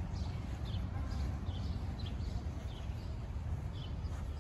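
Small bird chirping repeatedly, about two short high chirps a second, over a steady low rumble.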